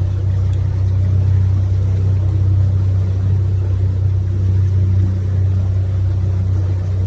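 A canal tour boat's engine running steadily, a constant low hum.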